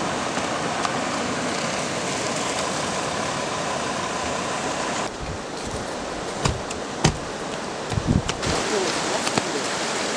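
Steady rush of a fast-flowing river. About halfway through it drops back and a few dull thumps sound, then the rush comes back up.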